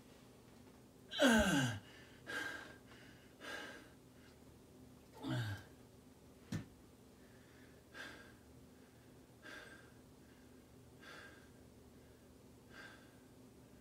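A man breathing hard after a set of dumbbell pullovers: two loud exhales with the voice, sliding down in pitch, about a second in and about five seconds in, then weaker breaths every second and a half or so that fade out. A single sharp knock comes at about six and a half seconds.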